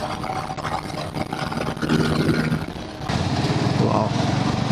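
Motorcycle engine running while riding, under a steady rush of wind and road noise. About three seconds in, the engine and the rush get louder.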